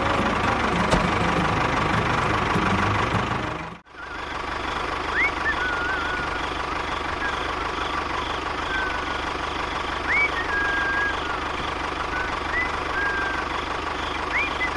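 Steady engine running, with a brief cut about four seconds in. Short rising chirps come a few times in the second half.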